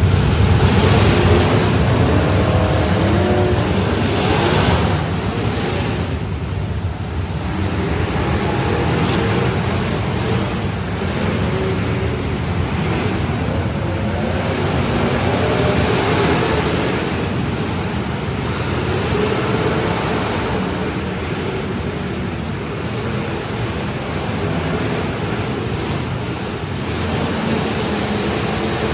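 Several demolition derby cars' engines running and revving together, loud and continuous, with no single sharp crash standing out.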